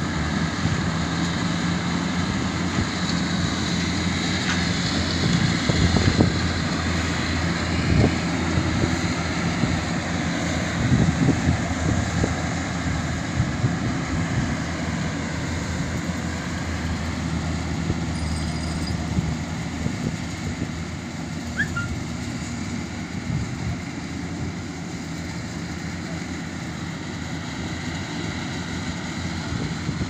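An engine running steadily at an even pitch, with a few brief knocks or bumps, growing slightly quieter in the second half.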